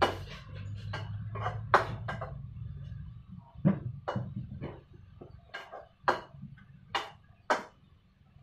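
A cooking utensil knocking and clinking against a pan and a plate as boiled vegetables are lifted out onto the plate: about a dozen sharp, irregular knocks. A low rumble underneath dies away about three seconds in.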